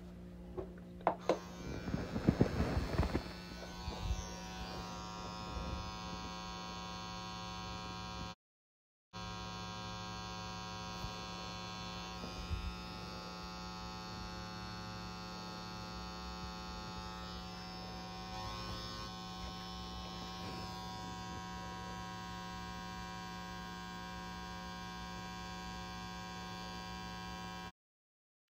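Pen-style tattoo machine running with a steady electric buzz as it inks the skin. A few louder rustling and tapping handling noises come in the first few seconds, and the sound cuts out completely twice, briefly.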